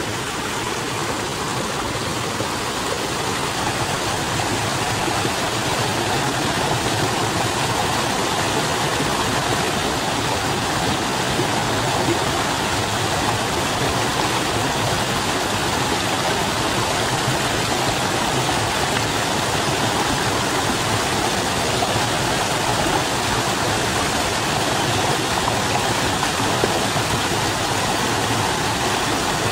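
A mountain stream running over rocks: a steady rush of water that grows a little louder over the first few seconds and then holds even.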